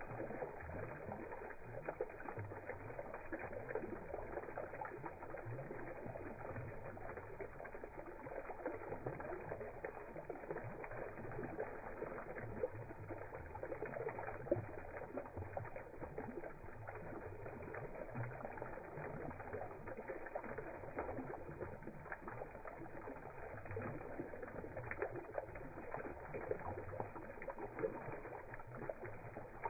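Water spilling from the tiers of a stone garden fountain and splashing and dripping into its basin: a steady, dull splashing with no highs.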